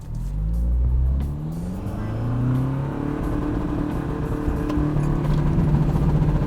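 Pickup truck engine revving up and holding high revs under load while it strains to pull stuck trucks on a tow strap in deep snow.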